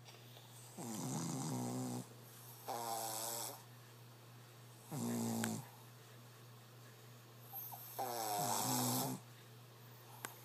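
Shih tzu snoring in its sleep, loud and human-like: four separate pitched snores with pauses of one to two seconds between them.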